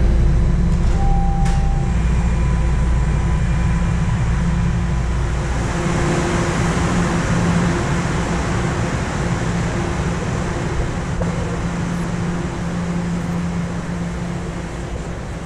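TTC Line 1 subway train at the platform: a low rumble with a steady hum beneath. The rumble drops away about six seconds in, a hiss swells briefly after it, and the whole sound fades slowly.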